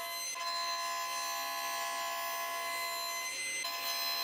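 Table saw running with a steady, high-pitched whine as the blade cuts a slot into the end of a dowel held in a tenoning jig. The whine breaks off briefly near the start and again about three seconds in, with a short rush of cutting noise.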